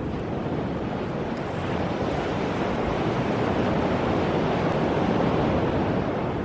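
Sea waves surging and washing onto a pebble beach: a steady rush of surf that swells to a peak about five seconds in, then eases.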